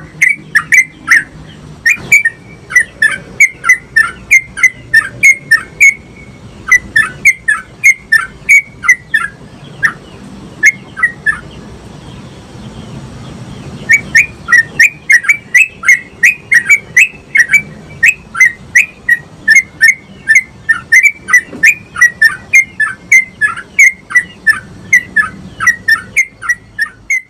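Yellow-vented bulbul (trucukan) singing a long run of rapid, sharp bubbling notes, about three a second, in the fast chattering 'ropel' style sought for training other birds. It breaks off for a couple of seconds midway, then takes up the run again.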